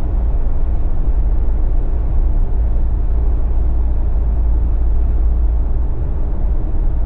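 Steady low road rumble of a Jeep on the move, its BFGoodrich KO3 all-terrain tyres and engine running at an even pace.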